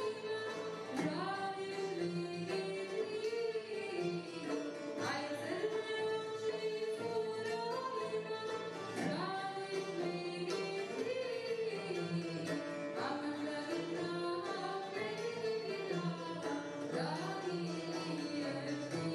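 A woman sings a melody with wavering ornaments over an oud and other plucked string instruments, in the old Serbian urban čalgija style.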